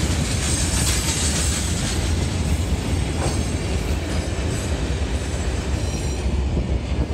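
Steel iron-ore hopper wagons of the Mauritanian iron ore train rolling along the rails, a steady heavy rumble and rattle of wheels and couplings.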